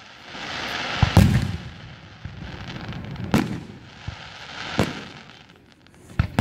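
Aerial fireworks shells bursting overhead: about five sharp booms a second or two apart, the first preceded by a rising hiss.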